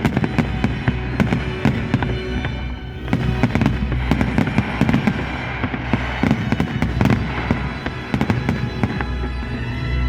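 Fireworks salute: many bangs and crackles from shells bursting in quick succession, with music playing underneath.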